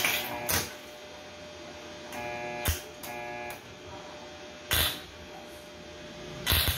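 Electric arc welding in short tacks: brief crackling spurts of the arc at the start, about five seconds in and again near the end. A short buzzing tone sounds twice in between.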